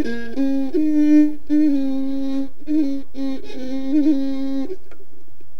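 Closing theme music: a single melody line of short, changing notes, which stops about five seconds in.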